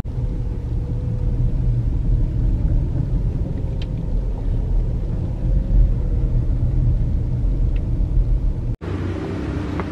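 Steady low rumble of a car driving, heard from inside the cabin: engine and road noise. Near the end it cuts off abruptly and similar road noise resumes.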